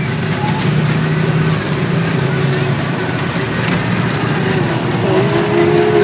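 Steady engine-like running noise with a low hum beside a children's ride train on its track, with faint voices in the mix.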